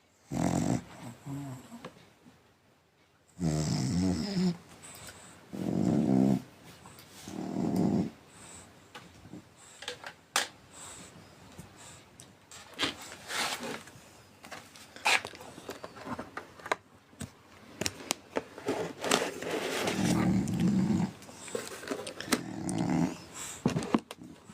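French bulldog snoring in its sleep: rough, throaty snores about a second long, several in the first eight seconds and more near the end, with a quieter stretch of short clicks and snuffles in the middle.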